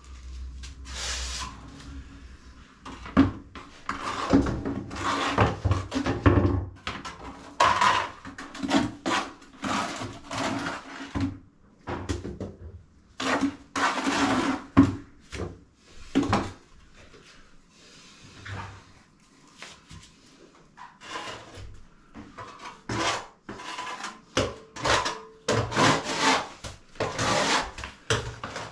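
Plastering trowel scraping wet cement render across a rough wall in a run of irregular strokes, with short pauses between clusters.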